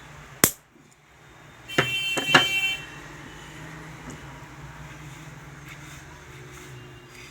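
A sharp click, then about a second later two or three loud metallic clinks that ring briefly, as metal tools and parts knock together while a sewing machine's direct drive motor is taken apart.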